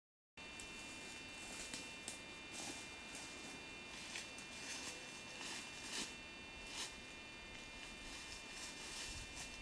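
Faint camcorder hiss with a thin steady high whine, cut to dead silence for a moment at the start, and scattered soft rustles every second or so.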